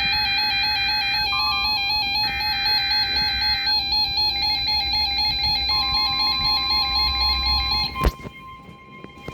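Emergency alert signal from a weather radio: data-like bursts of buzzing tone, each about a second long, alternate with a warbling electronic alarm. About six seconds in, the steady 1050 Hz weather alert tone starts and holds. Near the end a click comes, the warbling stops, and the steady alert tone carries on.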